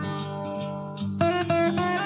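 Instrumental background music: an acoustic guitar plucking a melody, with new notes struck more quickly in the second half.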